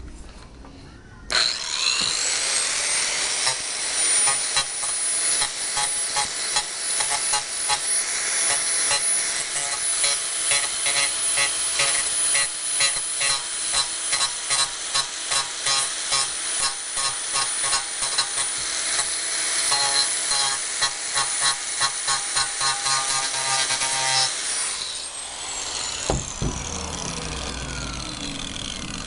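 Makita electric power tool starting up about a second in and running at speed with a high whine, its loudness pulsing as it cuts into a plastic water tank. About five seconds before the end it is switched off and winds down with a falling whine.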